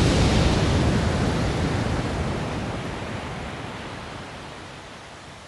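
Processed recording of an ordinary beach wave, put through equalization, compression, saturation, a limiter and downward pitching so it sounds much bigger: a heavy, deep rushing surge that fades steadily away.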